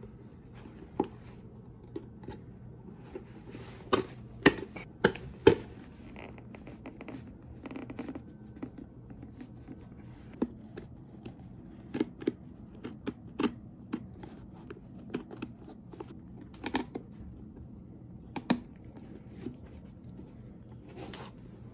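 Irregular sharp clicks, snips and scraping as a leather chukka boot is taken apart by hand: a blade cutting through the sole stitching and the rubber outsole being pried and peeled away. The loudest snaps come in a cluster about four to five and a half seconds in.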